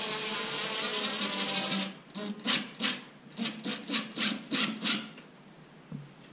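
Cordless drill driving a screw into a wall: one continuous run of about two seconds, then about eight short trigger bursts in quick succession as the screw is tightened.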